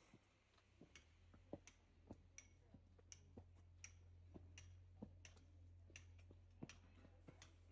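Footsteps at an even walking pace, sharp clicking steps about every half second, climbing stone steps and then crossing a gravel path.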